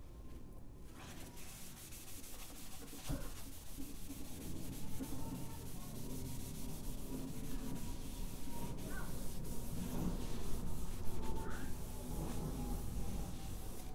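Shop towel wet with transmission fluid being scrubbed around the wall of an engine cylinder bore, an irregular rubbing that goes on stroke after stroke. This is the cleaning wipe that lifts the last honing debris out of the cylinder before assembly. A single light knock sounds about three seconds in.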